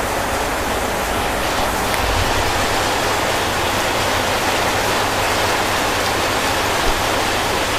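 Heavy rain falling, a steady, dense, even hiss.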